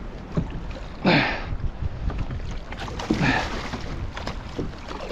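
Two short splashes of water about two seconds apart, over a steady rumble of wind on the microphone.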